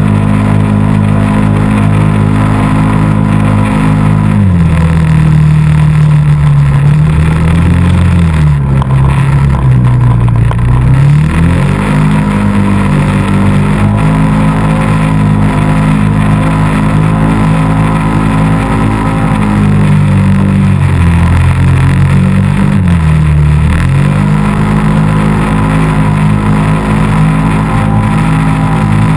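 ATV engine running close by while riding, with steady throttle. Its pitch drops as the rider eases off about four seconds in and climbs again around eleven seconds. It dips twice more past twenty seconds before picking up again.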